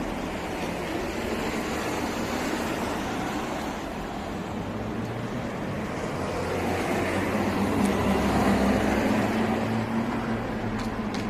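City street traffic: a steady hum of road noise that swells for a few seconds about seven seconds in as a vehicle passes, with a low engine drone. Two faint clicks come just before the end.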